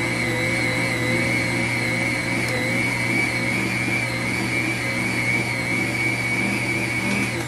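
Nutrimill Artiste stand mixer running steadily while kneading honey oat bread dough: an even electric motor whine with a high tone and a low hum.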